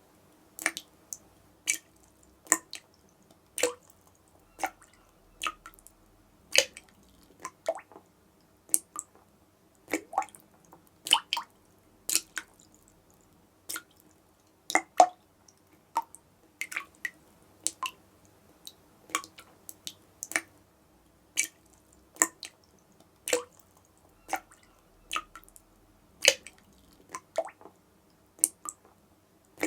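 Water dripping from a tap: an uneven run of short, sharp drops, about one or two a second, some landing louder than others.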